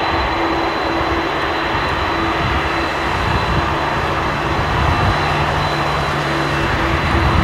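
Boeing 747-400 freighter's four jet engines running at taxi power as the aircraft rolls slowly on the ground: a steady rush of jet noise with a thin, high whine over it. A low rumble grows a little louder in the second half.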